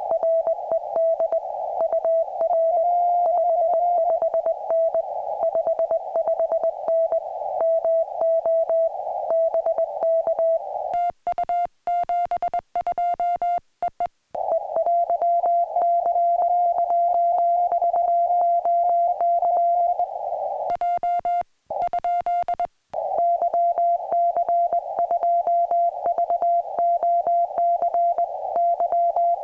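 Morse code (CW) from a ham radio: a single tone near 700 Hz keyed rapidly in dots and dashes over a band of receiver hiss. Twice the hiss drops away for a couple of seconds and the keyed tone sounds clean.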